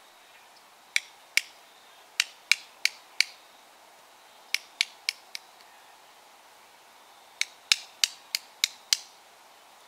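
A coin tapped against a quarter cupped tightly in the hand like a drum head: sharp metallic taps in three quick runs of four to six, about three taps a second. It is a homemade squirrel call, said to sound just like a squirrel opening a nut.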